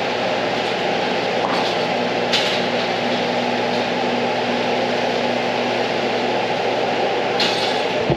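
Steady mechanical noise with a low hum that fades in and out, like a fan, air-handling unit or machinery.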